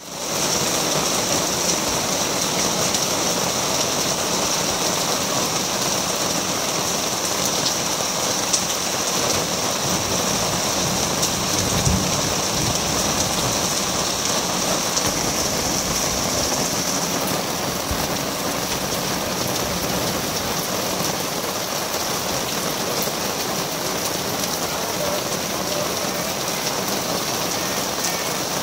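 Steady heavy rain falling on wooden picnic tables and wet ground, an even, unbroken hiss.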